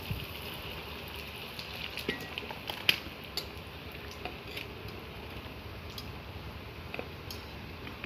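Hands mixing gram flour into sliced potatoes and onions in a steel bowl: soft rustling with a few light metal clinks, the sharpest about three seconds in.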